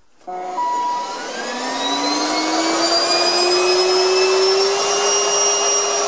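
Bissell Bolt Ion XRT cordless stick vacuum switched on a moment in: its motor spins up with a whine that rises in pitch for the first few seconds, then runs steadily.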